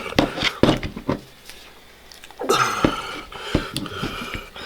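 Handling noise from steel revolver moon clips being taken out and handled: several light clicks and rattles in the first second, then rustling with a few more clicks from about halfway in.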